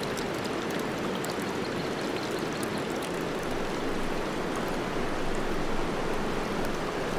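Water rushing and splashing along the side of a moving boat: a steady, even rush with small scattered splashes.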